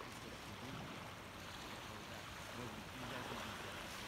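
Small waves lapping and washing gently up a sand and pebble beach: a soft, steady wash of water, with faint distant voices.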